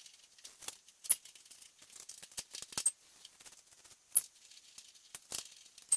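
Irregular light metallic clicks and clinks from small hand tools and fasteners being handled while a wing is bolted to a car's hatch. There are about a dozen, a few of them sharper, spaced unevenly.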